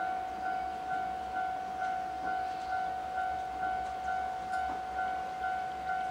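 Level crossing warning bell ringing steadily at about two rings a second, signalling that a train is approaching.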